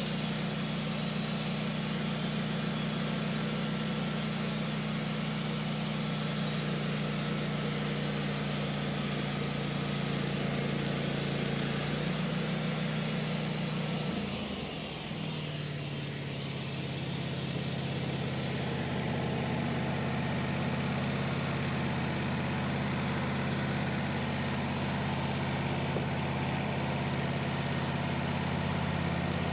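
Engine of a Wood-Mizer LT15 Wide portable band sawmill running steadily while its band blade saws through a black locust log. The engine note shifts lower about fourteen seconds in.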